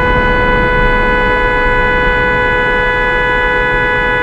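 A car horn held down in one long, steady, unbroken blast.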